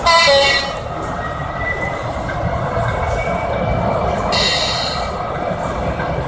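Model railway sound over steady exhibition-hall noise. A loud, shrill tone with a slight drop in pitch comes at the start and lasts about half a second. A shorter, higher shrill tone follows about four seconds in, like a horn or wheel squeal from a sound-fitted OO gauge diesel model.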